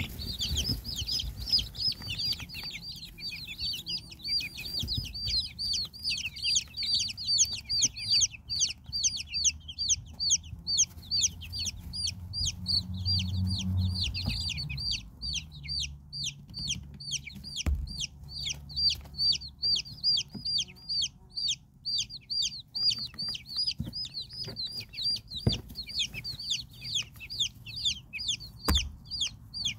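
Baby chicks peeping without a break: short, high, falling peeps, several a second, with a few soft knocks.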